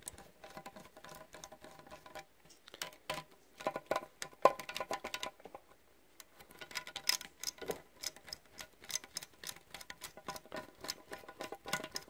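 Small screwdriver working the spring-loaded captured screws of a laptop CPU heatsink loose: a run of quick metallic clicks and ticks in clusters, with a couple of short pauses.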